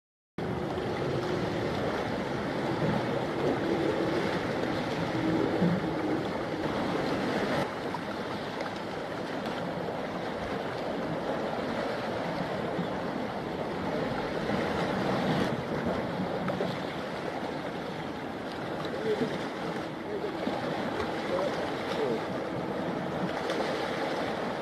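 Steady outdoor rush of wind on the microphone and sea waves washing at the shore, cutting in abruptly just after the start.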